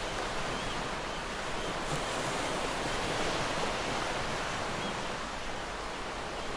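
Ocean surf washing onto a sandy beach: a steady rushing of waves with no distinct breaks.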